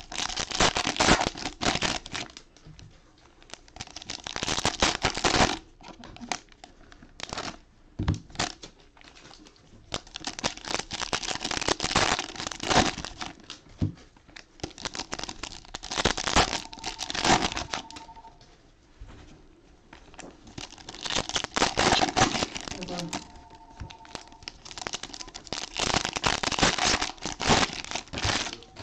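Foil trading-card pack wrappers crinkling and tearing as the packs are opened and pulled apart by hand. The sound comes in repeated bursts of a second or more, a few seconds apart.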